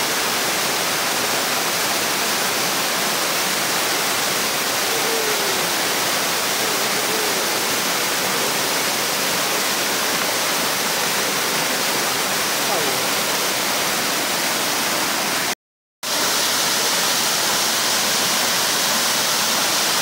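Steady rushing of a waterfall and the rocky stream rapids below it, a dense even hiss of falling and tumbling water. It cuts out abruptly for about half a second near three-quarters of the way through, then resumes.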